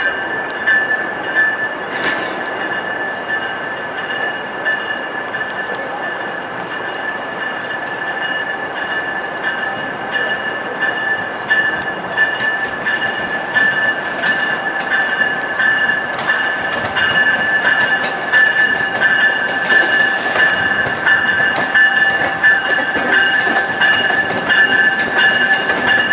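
Siemens Venture passenger train rolling along curved track, its wheels squealing in a steady high-pitched tone, with scattered clicks from the wheels passing over rail joints. It grows louder in the second half as the cars pass.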